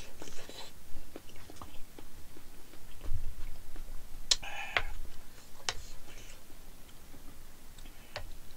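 A man chewing a mouthful of jjajang (black-bean-sauce) rice, with a few sharp clicks of a spoon against the plate as he scoops more.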